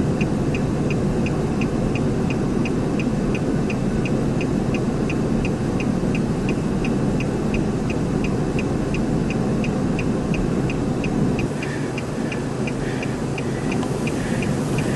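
A car's warning chime beeping rapidly, about three short beeps a second, over a steady rushing wind noise. The noise drops a little late on while the beeps go on.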